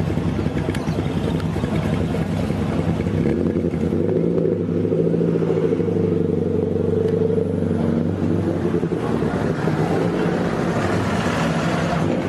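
A classic car engine running, its note shifting to a different, steadier pitch about a third of the way in, then turning noisier near the end.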